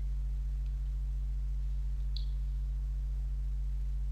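Steady low electrical hum on the recording, with one short faint click about two seconds in.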